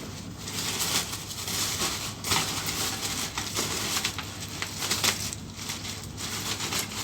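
Rustling and crinkling with scattered small clicks, as of hands rummaging through a bag of small electronic components.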